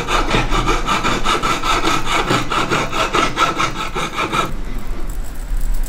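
Jeweller's saw cutting through 99.9% pure silver wire on a wooden bench pin: quick, even back-and-forth strokes that stop about four and a half seconds in.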